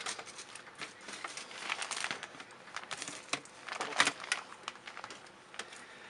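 Dryer vent cleaning brush on flexible rods being pushed up and down inside a flexible foil dryer vent duct: irregular crinkling and scraping of the duct wall with scattered clicks, as the bristles scrub loose built-up lint.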